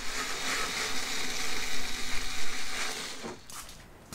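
Small electric screwdriver fitted with a 10 mm socket, running steadily as it backs out a headlight mounting bolt. It stops about three seconds in.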